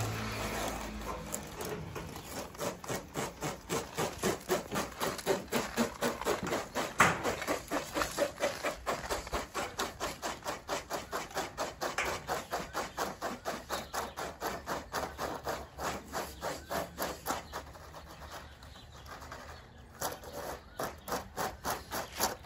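Corrugated plastic electrical conduit being pushed through the holes of hollow ceramic bricks, its ridges rasping against the brick in quick repeated strokes, about three a second. The strokes fade for a moment near the end, then pick up again.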